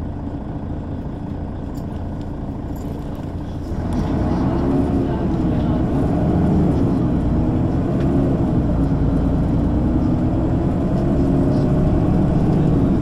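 Engine of a Mercedes-Benz O 530 G Citaro G articulated bus, a steady low rumble that grows louder about four seconds in as it comes under load. From then on the engine's pitch rises and dips several times.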